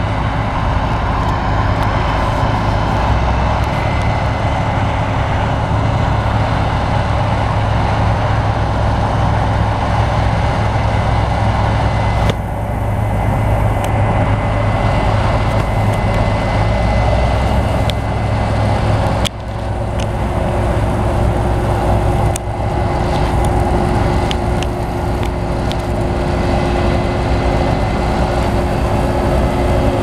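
Diesel engines of a Case IH combine harvester and a tractor pulling a grain cart running steadily under load, a continuous heavy rumble with a faint steady whine above it. The sound dips briefly a few times past the middle.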